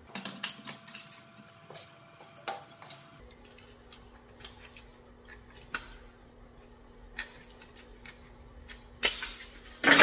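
Scattered metallic clicks, clinks and taps of hand tools and vise grips on steel at a bench vise, with a louder clatter near the end. A faint steady hum comes in about three seconds in.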